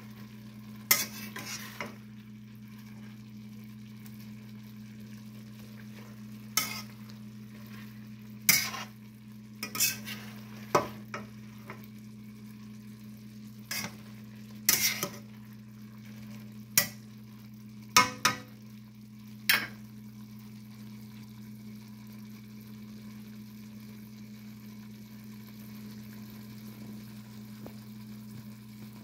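Shrimp, bell pepper and onion frying in butter in a stainless steel pan, sizzling steadily, while a utensil stirs them and scrapes and taps against the pan about a dozen times over the first twenty seconds; after that only the sizzle and a steady low hum remain.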